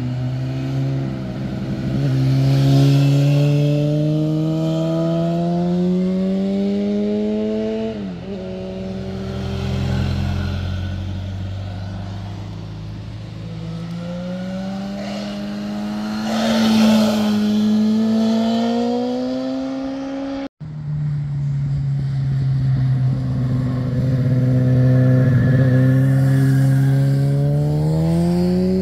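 Motorcycle engines accelerating out of a bend, one after another: each engine note climbs steadily in pitch, with a sharp dip about eight seconds in at a gear change. About two-thirds through the sound cuts off abruptly and another bike's engine takes over, rising again.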